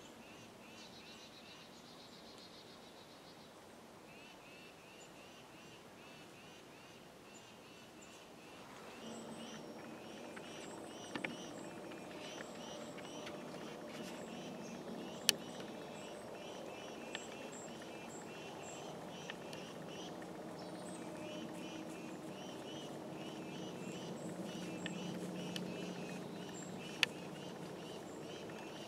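Faint outdoor ambience of steady, evenly repeated high-pitched chirping. About nine seconds in a low hum comes up under it, and a few sharp clicks stand out.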